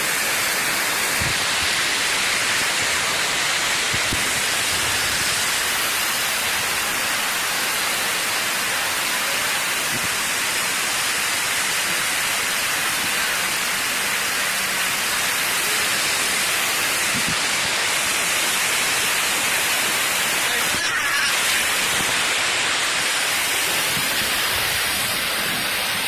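Rushing water of a shallow, rocky river running through small rapids over boulders: a steady, even hiss.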